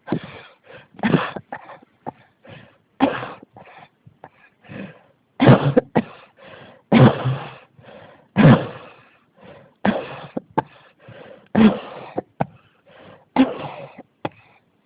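A person coughing in a fit that won't stop: about nine hard coughs one to two seconds apart, with weaker coughs and breaths in between.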